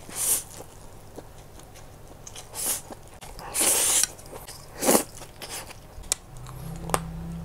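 Eating sounds: instant noodles slurped and chewed, in a few short noisy bursts with one longer slurp about three and a half seconds in. Near the end come a couple of sharp crisp snaps as a piece of chocolate is bitten.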